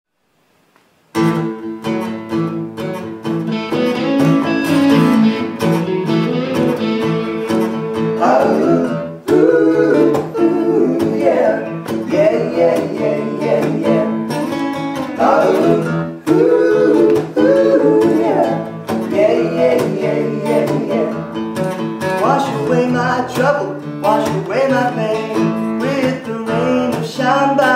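Acoustic guitar strumming, starting about a second in, with three male voices singing in close harmony over it.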